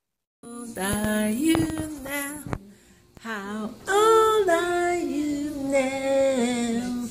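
A woman and a child singing together, with a short break just before halfway through.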